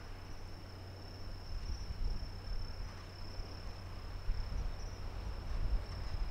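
Insects chirring in one steady high-pitched note, over a low rumble that grows louder near the end.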